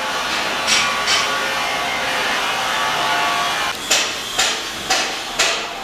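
Hammer blows on a building renovation site, about two a second: two early, then a run of four starting just before the end, with a steady scraping work noise in between.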